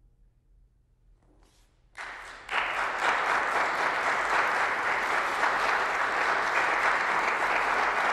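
Audience applauding: after about two seconds of near silence the clapping breaks out and quickly swells to a steady, even applause.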